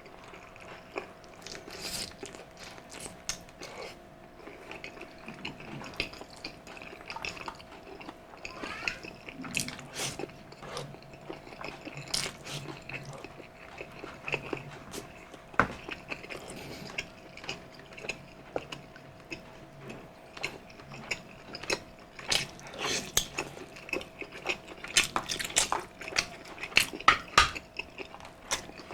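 Close-miked chewing and wet mouth smacks while eating balbacua, a Cebuano beef stew, with irregular sharp clicks throughout over a faint steady hum.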